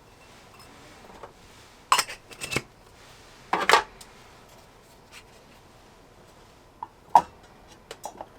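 Metal camping gear being handled and set down: light clinks and knocks in two short clusters about two and three and a half seconds in, then a few single taps near the end.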